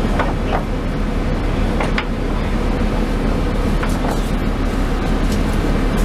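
Steady low rumble of running machinery, with a few sharp knocks over it.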